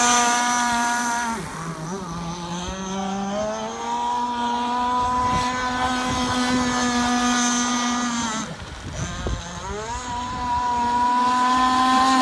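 Two-stroke gasoline engine of a radio-controlled speedboat running near full throttle. Its pitch drops twice, about a second and a half in and again after about eight seconds, as the throttle eases off, then winds back up to a steady high note.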